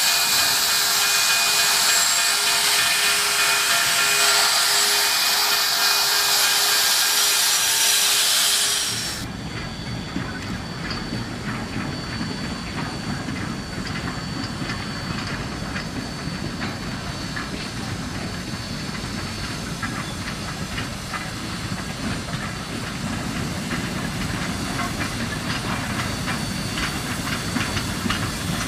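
CNR 2-8-0 steam locomotive #2141 venting steam in a loud, steady hiss, which cuts off abruptly about nine seconds in. A quieter, lower rumble follows as the locomotive and its coaches move along the track, with faint light clanks.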